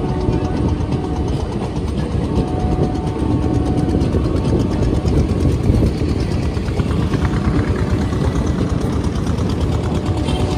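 Passenger train coaches rolling past on the rails: a steady, loud rumble of wheels with a faint regular clatter, and a faint steady hum in the first half that fades.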